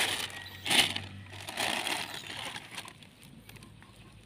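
Plastic bag rustling and crinkling as a freshly caught snakehead is pushed into it by hand. It comes in a few short bursts, loudest about a second in, then fades.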